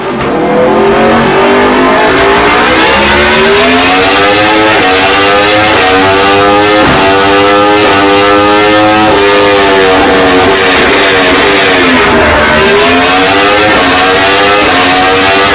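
Aprilia RSV4 R's V4 engine with an SC-Project exhaust, revving hard on a dyno. The revs climb for about nine seconds with two or three short breaks, drop away for about three seconds, then climb again.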